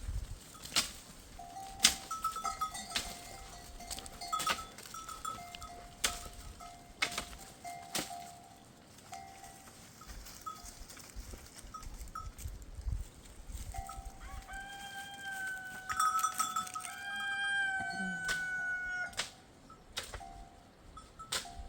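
Grazing flock of sheep and goats with livestock bells clinking and clanking at intervals. A long, drawn-out animal call sounds about fourteen seconds in.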